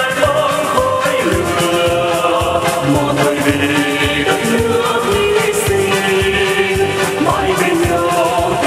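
A man and a woman singing a Vietnamese song as a duet, over accompanying music with a steady beat.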